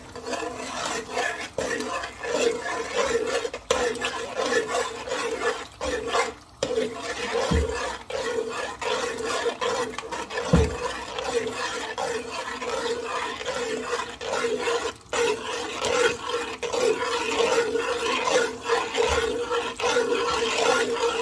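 A spoon stirring pasta, minced chicken and sauce in a large aluminium pot, with repeated scraping and knocking against the pot. A steady hum runs underneath.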